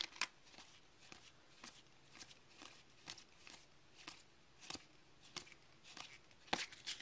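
Panini Pinnacle hockey trading cards flipped one at a time off a stack in the hands: a run of faint, quick card flicks and slides, about two a second.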